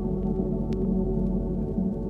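Ambient drone music: a steady, dense bed of sustained low tones, with a faint click about two-thirds of a second in.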